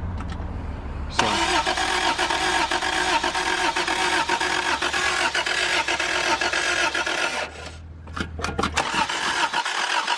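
Four-wheel-drive Toyota Tercel's carbureted four-cylinder engine being cranked on the starter in a long burst, then, after a brief pause with a few clicks, cranked again. It turns over without catching during a test of whether the lift pump and carburetor are delivering fuel.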